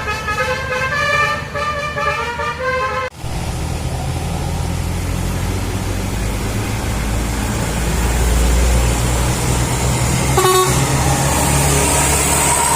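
Multi-tone 'telolet basuri' bus horn playing a short stepping melody, which cuts off abruptly about three seconds in. After that a bus engine runs with a steady low rumble that grows louder from about eight seconds in as the bus comes closer.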